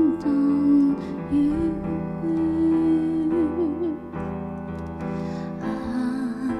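A slow song: a solo voice sings held, wavering notes over sustained keyboard chords. The voice breaks off for a moment about two-thirds of the way through, then comes back on lower notes near the end.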